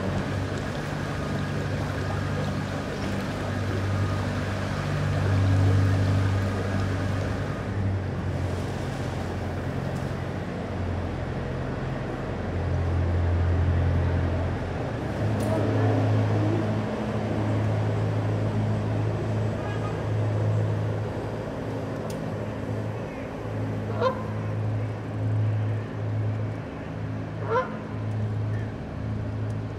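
Narrowboat engine running steadily at cruising speed. Near the end a goose honks twice, a few seconds apart.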